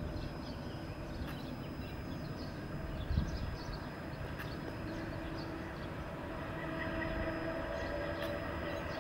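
FS E.655 electric locomotive with a freight train approaching. Its steady multi-tone hum comes in about halfway through and grows louder toward the end.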